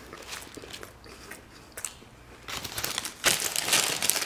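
Mouth chewing and smacking on a bite of sub sandwich, then a Miss Vickie's potato chip bag crinkling loudly as it is picked up and handled, starting about two and a half seconds in.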